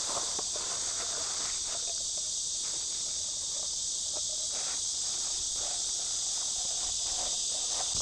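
Cicadas singing in a steady chorus, a continuous high buzz that never lets up.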